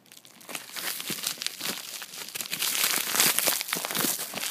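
Plastic mailer bag crinkling and crackling as it is handled and pulled open, growing louder about two seconds in.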